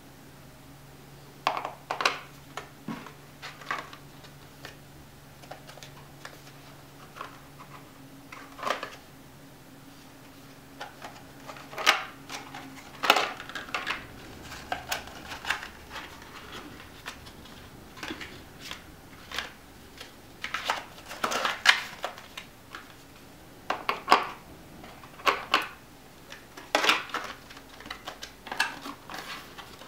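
Plastic packaging of an M.2 NVMe SSD being handled: irregular clicks, taps and light crinkles as the drive is lifted from and pressed back into its plastic tray, with some tapping on the table.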